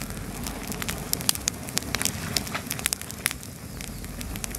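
Wood campfire burning: sharp, irregular crackles and pops, several a second, over a steady low rush of flame.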